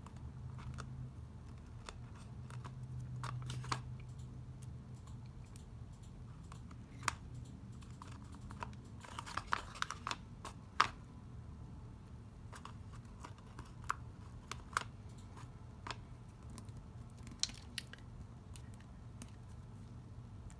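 Small irregular clicks and taps of flat-back pearl gems and card being handled and pressed down on a craft table, with a cluster of them about nine to eleven seconds in, over a low steady hum.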